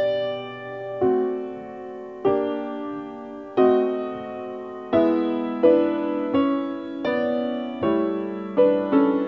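Piano playing slow chords, each struck and left to ring and fade. They come about one every second and a half at first, then roughly twice as fast from about halfway through.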